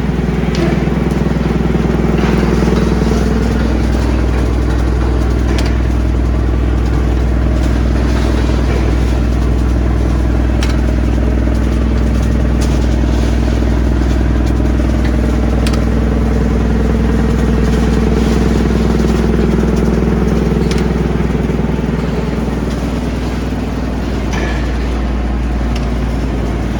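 Large mobile wood chipper running with a steady, loud, low engine drone, with sharp cracks now and then as wood is chipped.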